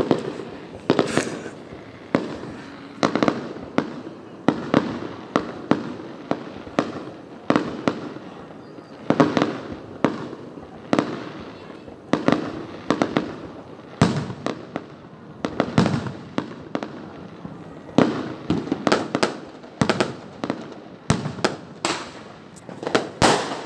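Fireworks display: aerial shells bursting one after another, sharp bangs about every second or so, each trailing off in a rumbling echo, with a denser cluster of bangs near the end.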